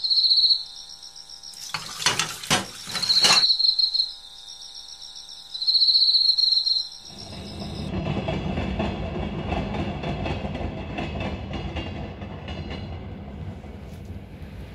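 Night ambience of crickets chirping in pulsed bouts, with a brief cluster of sharp clacks, then from about seven seconds in a train rumbling past, fading slowly.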